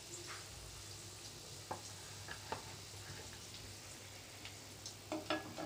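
Batter-coated potato chops deep-frying in mustard oil in a kadai: a steady hiss of sizzling oil. A few sharp metal clinks cut in, once or twice around two seconds in and a quick cluster near the end.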